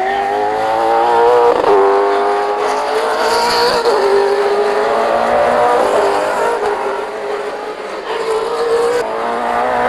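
A V8 Supercar's 5.0-litre V8 engine at racing speed. Its note climbs and drops back sharply at each gear change, several times.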